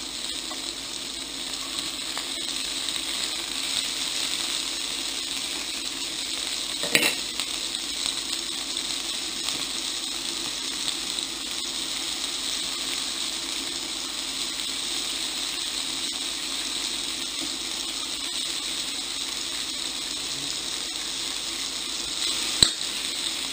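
Kebabs, red onion and tomato slices sizzling and crackling in hot oil in a frying pan, a steady dense crackle as the tomato slices go into the pan. A sharp knock sounds about seven seconds in and another, louder one near the end.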